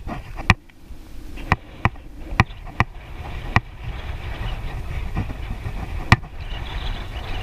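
Bicycle riding on an asphalt road: a steady low wind-and-road rumble on the microphone, with sharp, irregular clicks and knocks as the bike rattles over bumps.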